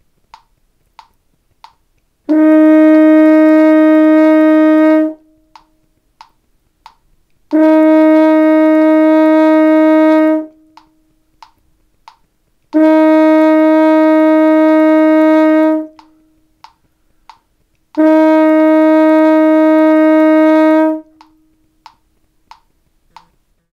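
French horn sounding written B flat, played on first valve with tightened lips, four times. Each is a steady held note of about three seconds with a short gap between. Faint ticks about two a second mark the beats in the gaps.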